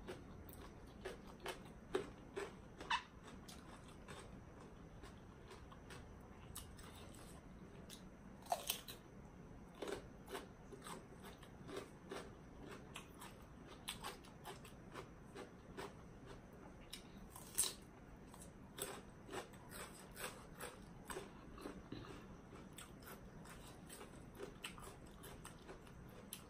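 A person chewing and biting into spicy papaya salad with noodles and raw vegetables: wet chewing with many irregular small crunches and mouth clicks, a few louder crunchy bites among them.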